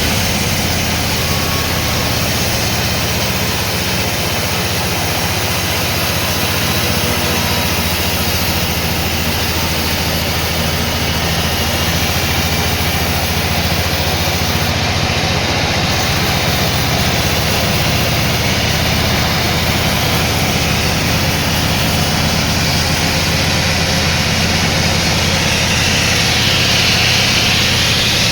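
Sawmill machinery running steadily: a low, steady hum under an even whirring noise, a little louder near the end.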